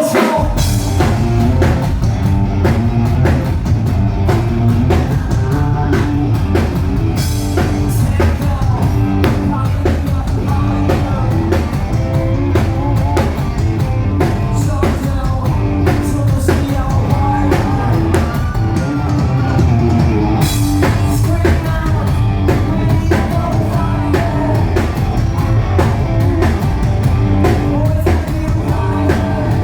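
A rock band playing live and loud, with a steady drum-kit beat, guitar and singing.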